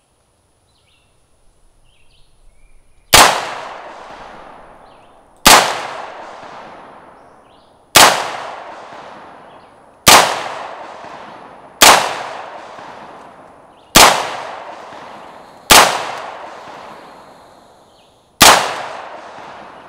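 Eight single 9mm shots from an HK SP5K pistol, fired slowly one at a time about two seconds apart, each trailing off in a long echo.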